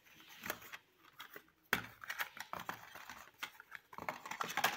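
Cardboard phone box and its packaging being handled while accessories are taken out: irregular clicks, taps and rustles, with a sharp knock a little under two seconds in and a busier run of clicks near the end.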